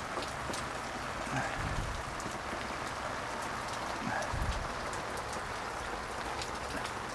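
Heavy rain falling steadily on a pop-up canopy, with scattered drips. There are two short low thumps, about two and four and a half seconds in.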